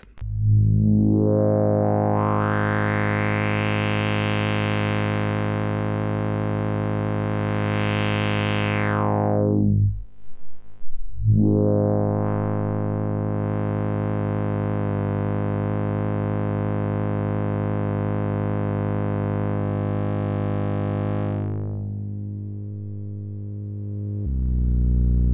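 Mutuca FM analog synthesizer holding a steady low note while its filter is swept slowly open and closed, the tone brightening and then going dark again. The note sounds again about eleven seconds in with a second smooth sweep, and a lower, louder note begins near the end.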